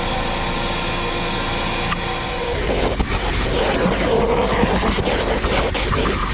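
Vacuum cleaner motor running steadily, with a spray hiss from an aerosol can on the trunk carpet early on. About two and a half seconds in the sound changes to the vacuum hose nozzle being dragged over carpeted seatbacks, with rustling and scraping.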